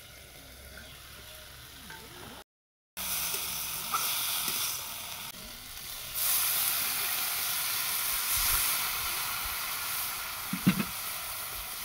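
Vegetable strips frying in hot oil in an iron kadai: a steady sizzle that starts about three seconds in and grows louder about six seconds in. A metal spatula scrapes and knocks against the pan a few times, the sharpest knock near the end.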